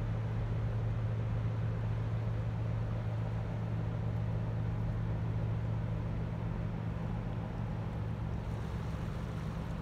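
Low, steady drone of a ship's diesel engine across the water, with a light wash of wind and water noise.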